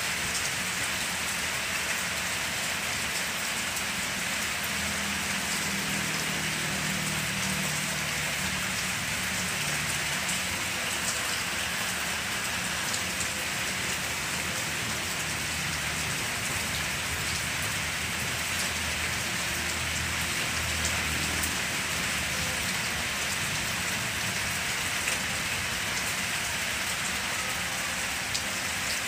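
Steady rain falling on banana leaves and the ground: an even hiss with scattered sharper drop ticks.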